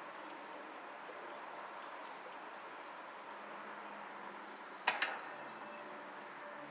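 Faint, regular chirping, about two short chirps a second, over a steady low hiss. About five seconds in, two sharp clicks come in quick succession.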